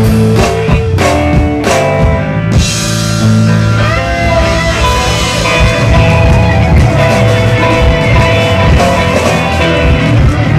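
Blues band music: guitar notes over bass and drums, with a note bent upward about four seconds in.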